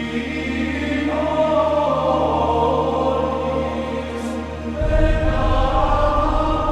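Background music: choir-like chanted voices in held notes over a low drone, the bass part changing and growing louder about five seconds in.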